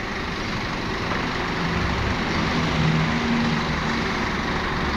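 Toyota 1.5-tonne forklift engine running steadily while the forks are being adjusted on the hydraulics. A deeper hum comes in after about a second and a half and holds.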